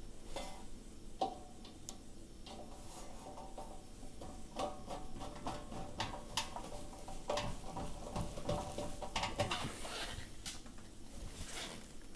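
Screws being refitted to secure a sheet-metal oven flue vent on a range cooker: scattered small clicks and light metal clinks and knocks.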